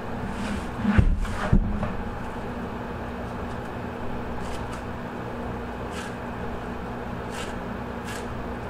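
Steady low room hum, with two dull thumps about a second in and a few faint ticks later, from a fish and skinning knife being handled on a stainless steel table.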